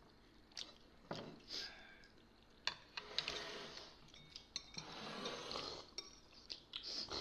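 Metal spoons clinking against porcelain soup bowls as people eat, a scatter of light clinks with soft stirring noises between them.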